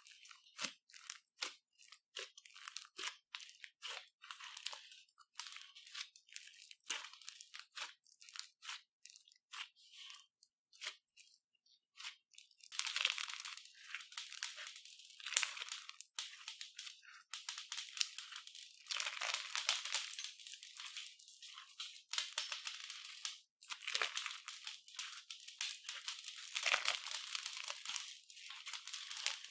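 Green crunchy slime full of beads being squeezed and kneaded by hand, crackling and popping. For the first twelve seconds or so the pops come one by one; then, as the slime is stretched and worked, they run together into a dense, continuous crackle.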